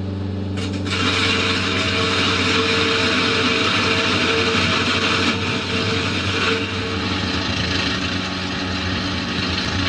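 Construction machine's engine running steadily, with a loud hissing noise joining it about a second in.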